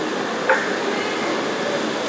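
Steady background hiss, with one short click-like blip about half a second in.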